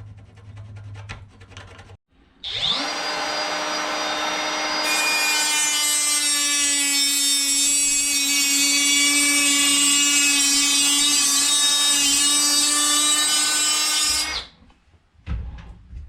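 Power tool spinning up about two and a half seconds in and cutting through a length of Wiremold metal raceway channel, a steady motor hum joined by a loud, high-pitched cutting screech from about five seconds in, then switching off near the end.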